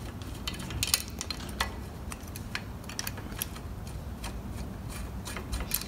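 Scattered light metallic clicks and taps of bolts and washers being handled and fitted into a go-kart's rear axle bearing cassette bracket.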